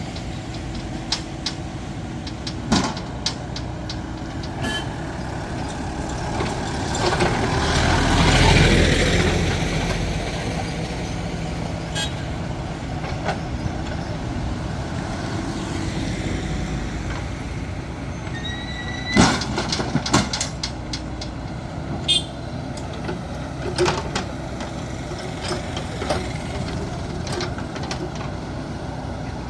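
JCB backhoe loader's diesel engine running steadily under work, with scattered sharp metallic clanks and knocks. A passing vehicle swells up and fades away about eight seconds in.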